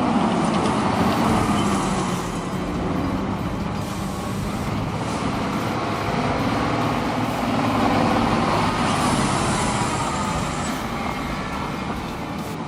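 Heavy logging truck's diesel engine running under load, its pitch slowly rising and falling as the revs change.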